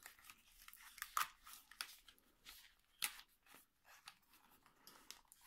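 Faint plastic clicks and rubbing from a pair of foldable Selecline Bluetooth headphones being turned over and unfolded in the hands, a few sharper clicks standing out among the rustle.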